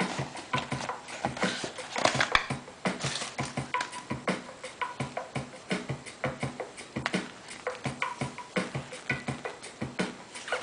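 Background music in a sparse, percussive stretch: a fast run of clicking beats with short pitched notes about every two seconds.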